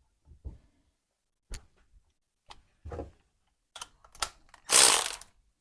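Kurt vise jaw plates and their screws being handled and fitted: a series of light metal clicks and knocks, then a loud half-second burst of a power tool near the end.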